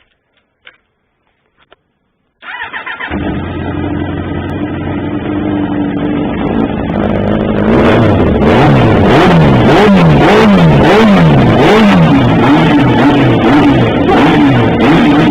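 1993 Suzuki GSX-R750 inline-four on its stock exhaust, starting about two seconds in after a few faint clicks, then idling. From about halfway it is revved in quick repeated blips, the pitch rising and falling, and it holds a higher steady note near the end.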